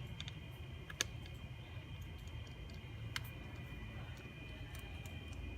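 A few light clicks and taps of an NVMe SSD being handled and fitted into the laptop's M.2 slot. The sharpest click comes about a second in and another about three seconds in, over a faint steady hum and high whine.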